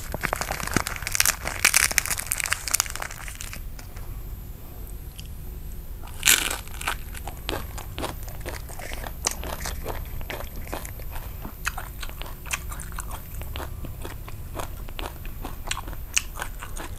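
Close-up eating sounds: crunching bites and chewing of a Vietnamese rice-paper roll of nem nướng pork sausage, fresh herbs and crispy fried rice-paper. A dense crackly crunching fills the first few seconds, a sharp crunch comes about six seconds in, then steady small chewing clicks follow.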